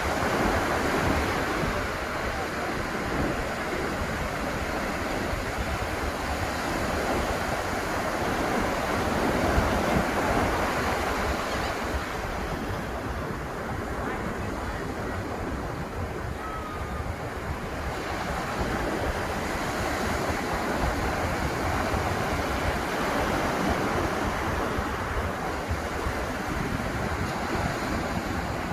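Ocean surf washing continuously onto the beach, waves breaking and rolling in without pause, with some wind buffeting the microphone.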